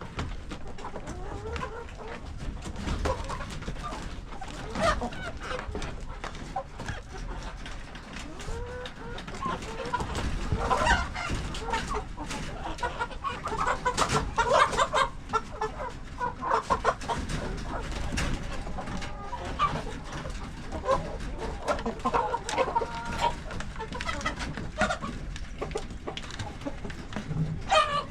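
A flock of chickens clucking, with many short overlapping calls and scattered clicks and knocks, growing louder and busier about ten seconds in.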